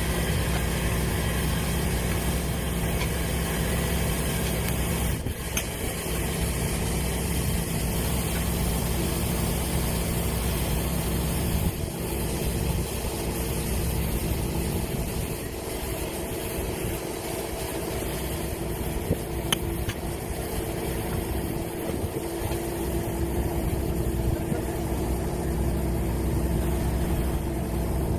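Hydraulic core drill running steadily as it bores down, driven by a hydraulic power unit whose engine runs at an even pitch, with a few short clicks.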